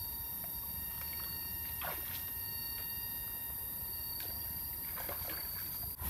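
Bare feet stepping into a shallow stream, splashing twice, about two seconds in and again about five seconds in, over a steady high-pitched hum.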